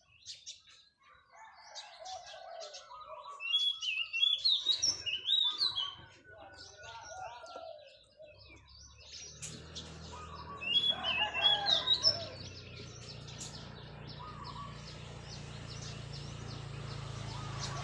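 Zebra dove cooing in several bursts of rolling notes, with small birds chirping high over it. From about eight seconds in, a steady low motor hum joins and grows.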